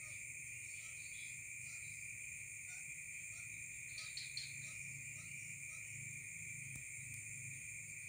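A steady chorus of insects trilling without a break, high-pitched and faint. From about three seconds in, a run of short faint calls repeats about three times a second, over a low hum.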